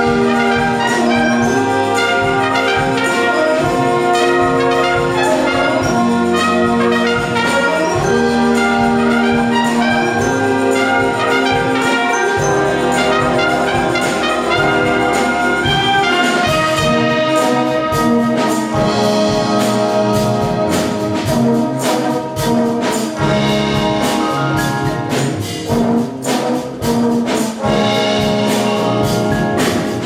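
A batterie-fanfare, a French brass and percussion band, playing a concert piece: held brass chords and moving melody lines. From about halfway through, rapid percussion strikes join in.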